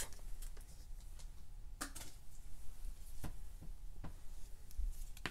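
Faint handling of a freshly opened pack of cardboard trading cards, with a few short clicks as the cards are taken out of the foil wrapper and squared up in the hand.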